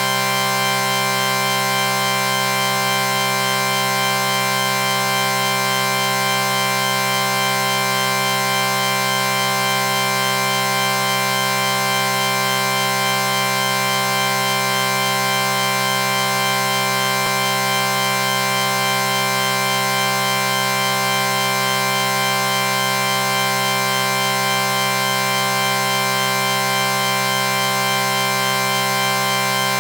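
A sustained chord sound effect: several steady tones held together without any change in pitch or loudness.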